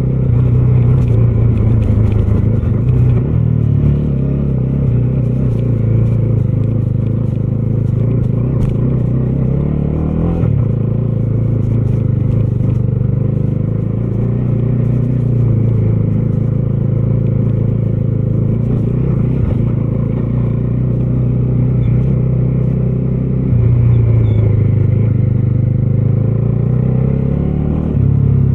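Bajaj Dominar 250's single-cylinder engine and exhaust under way, the engine speed rising and falling a few times with the throttle.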